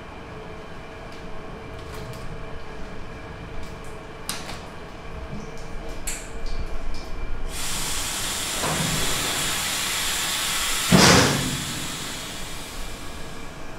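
A few light metallic clicks, then a steady hiss from about halfway through, and a loud metal clank a little before the end as the stainless steel cabinet of the sundae steamer is slid shut.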